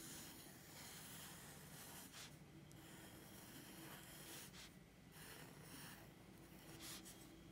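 Faint scratching of a pencil on paper, broken by a few short pauses between strokes.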